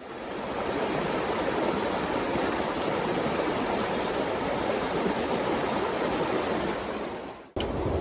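River water flowing, a steady rush that fades in at the start. About seven and a half seconds in it cuts off abruptly and is replaced by a lower, rumblier noise.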